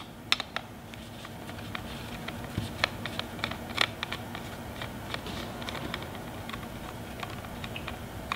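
Hand screwdriver backing out small screws from a steering wheel's Manettino switch housing: a string of irregular small metallic clicks and ticks over a faint steady hum.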